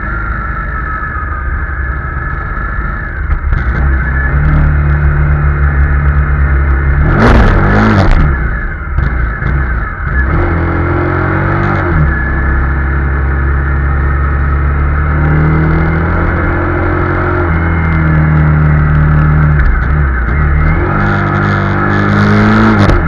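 Honda CRF250 Rally's single-cylinder engine under way, its note climbing and then stepping down again and again as the rider works the throttle and shifts gears. A short loud rush of noise about seven seconds in.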